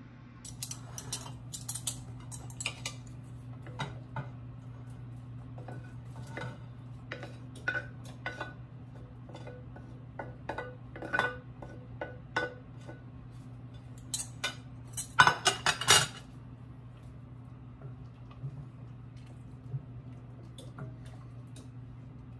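Dishes and cutlery clinking and clattering: a ceramic plate, metal forks and a stainless-steel pot knocked and set down in scattered clinks, with a quick, loudest run of clatters about fourteen to sixteen seconds in. A steady low hum runs underneath.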